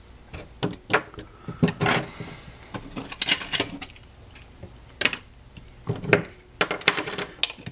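Irregular clicks, knocks and small clatters from the parts of a Master Replicas Darth Vader lightsaber hilt being handled and taken apart, with several quick bunches of rattling taps.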